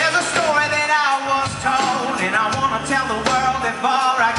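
Live rock band playing a pop-rock song, with a steady bass line and drums under a wavering melody line.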